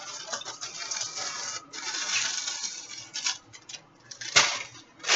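Someone rummaging: rustling, crackly noise of things being handled, with scattered clicks and a sharp knock a little over four seconds in.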